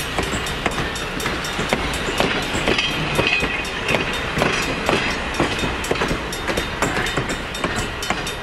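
Passenger coaches rolling past, their steel wheels clicking irregularly over the rail joints over a steady rumble. A brief high wheel squeal comes about three seconds in.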